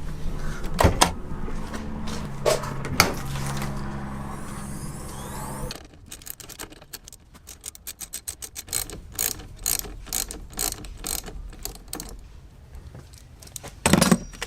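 Quick irregular mechanical clicking and rattling of hand tools at work on the car. Under the first six seconds runs a steady low hum, which cuts off suddenly.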